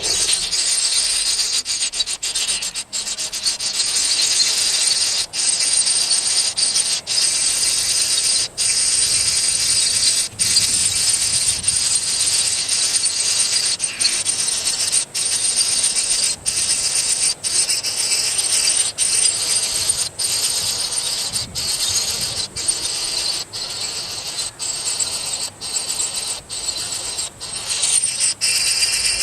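Steady, loud, high-pitched insect chorus chirring, broken by brief dropouts about every second and a half.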